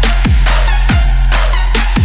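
Background electronic music with a fast, heavy beat: deep falling kick-drum hits about three times a second under dense synths.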